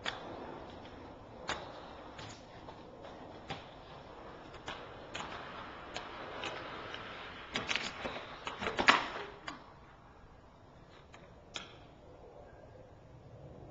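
Inline skate wheels rolling on a ramp with scattered clacks and knocks. A quick cluster of hard knocks comes about eight to nine seconds in, the loudest near nine seconds, after which the rolling stops and it goes quiet apart from one more click.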